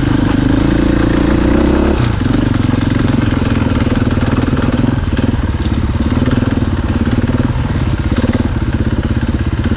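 Dirt bike engine running at low speed on a trail. About two seconds in the engine note changes, and it runs on with a rapid, uneven pulse.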